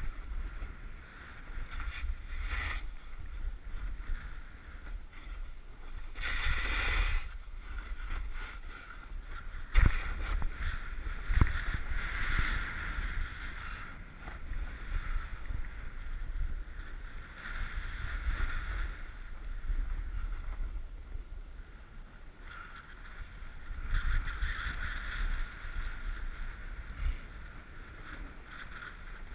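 Snowboard edge scraping over chopped-up, tracked snow in a series of turns, with wind buffeting the helmet camera's microphone. A longer, harder scrape comes about six seconds in, and two sharp knocks come about ten and eleven seconds in.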